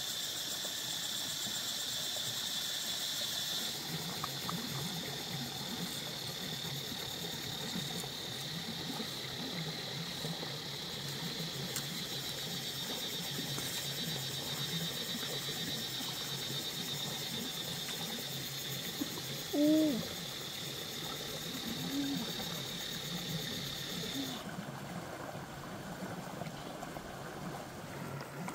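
Steady high-pitched insect chirring over the low, even rush of a shallow stream; the insect sound cuts off abruptly near the end. About two-thirds of the way through there is a brief pitched call, the loudest moment, with a couple of fainter ones after it.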